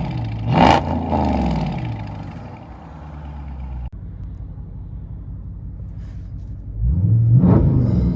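6.4-litre HEMI V8 of a 2019 Dodge Charger Scat Pack, its dual exhaust with the mid mufflers deleted, blipped once and settling to idle. About four seconds in the sound cuts suddenly to a quieter idle, and near the end the engine revs up again.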